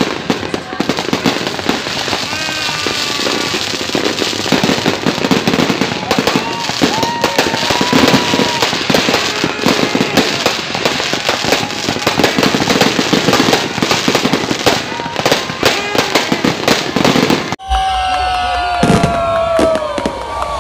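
Fireworks display: a dense, continuous run of crackling bursts and bangs from star shells, with people's voices mixed in. Near the end the sound cuts abruptly to a crowd calling out and cheering.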